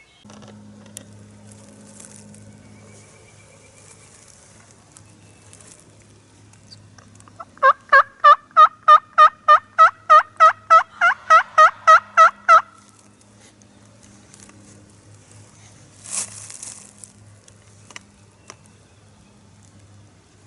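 Turkey yelping: a long, loud run of about twenty evenly spaced yelps, about four a second, lasting some five seconds. A short rustle follows a few seconds later.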